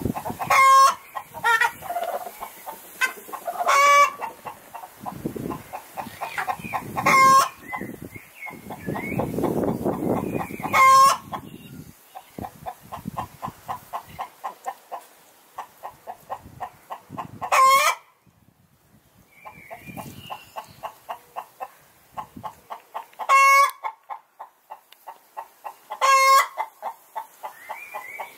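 Chickens clucking in quick runs of short notes, about three or four a second, broken every few seconds by a loud, sharp squawk, the pattern of a hen's cackle. The sound drops almost to silence for a moment a little past halfway.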